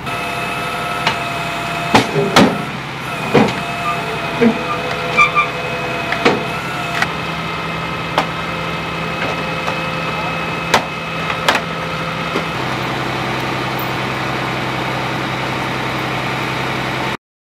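Flatbed tow truck winching a car up onto its tilted bed: a steady engine drone with a steady whine, broken by sharp metallic clanks and knocks during the first twelve seconds. The low hum changes pitch about twelve seconds in, and the sound cuts off suddenly near the end.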